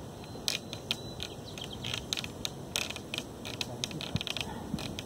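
Irregular clicks, taps and creaks from a short electrical-conduit push pole and climbing rope being handled, several sharp clicks a second with uneven gaps.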